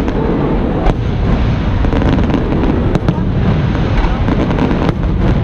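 Aerial fireworks going off in a continuous barrage: a steady low rumble of booms under many sharp crackling pops.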